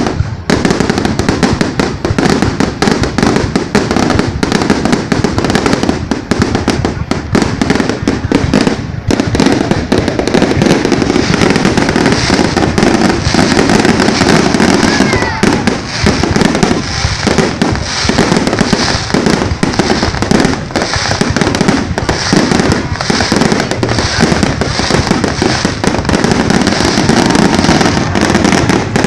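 Fireworks display going off continuously: a dense, unbroken stream of bangs and crackles, loud throughout.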